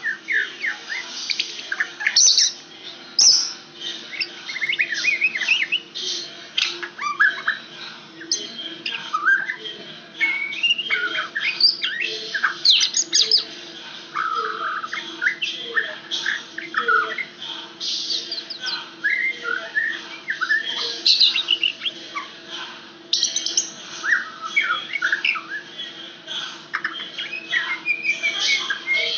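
Caged white-rumped shama singing: a long, varied run of short whistled notes and chirps sweeping up and down, almost without a pause.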